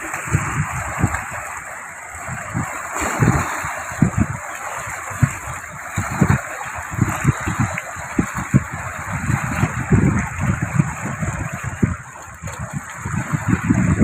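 Sea water washing and lapping around rocks, a steady rushing, with irregular low rumbles of wind on the microphone.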